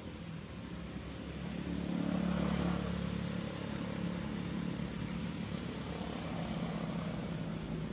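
Motorcycle engine running, growing louder about two seconds in and then holding at a steady drone.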